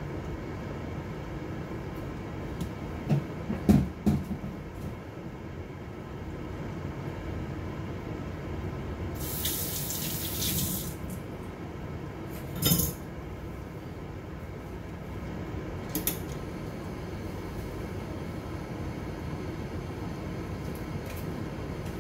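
Kitchen sounds: a steady low rumble, a few knocks and clatters, and a tap running for about two seconds midway.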